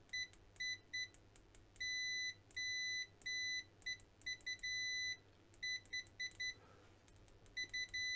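Continuity buzzer of a Kaiweets KM601s digital multimeter beeping each time its test probes touch, signalling a closed circuit. It is a single high beep, sometimes a quick blip and sometimes held for about half a second, starting and stopping irregularly with each contact. It responds reasonably fast.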